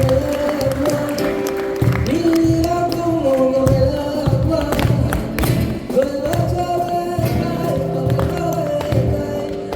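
Music: a melody of long held, sliding notes repeating in short phrases over a steady beat of about two pulses a second.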